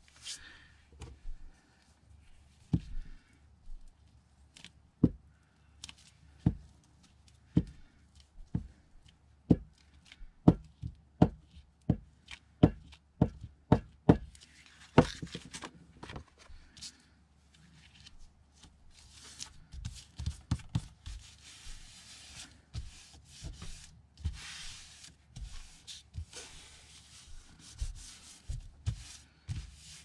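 Hands handling and smoothing sheets of paper on a wooden desk: a run of light taps and knocks on the tabletop, quickest near the middle at about two a second, then stretches of paper rubbing and sliding as a glued picture is pressed onto its backing sheet.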